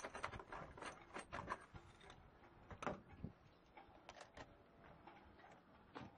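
Security loop chain in a fabric sleeve clinking and rattling as it is handled and threaded through a mooring fitting. It comes as a run of short metallic clicks, thickest in the first second and a half, with a sharper knock just under three seconds in and a few more clicks around four seconds.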